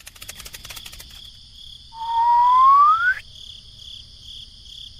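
Steady cricket chirping in pulses. A quick run of clicks comes in the first second, and a loud whistle-like tone about two seconds in rises in pitch for about a second before cutting off suddenly.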